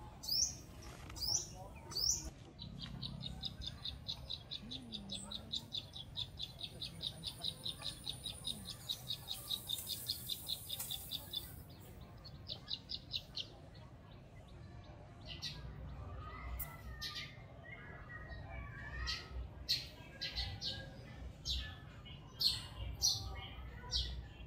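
Wild birds chirping: sharp high chirps about once a second at first, then a rapid, even trill for about ten seconds, then scattered chirps again from a little past halfway.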